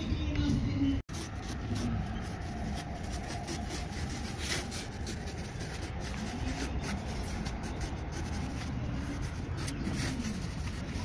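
Pencil scratching and rubbing in short strokes across the surface of a polystyrene foam block as an outline is sketched, over a steady low background rumble.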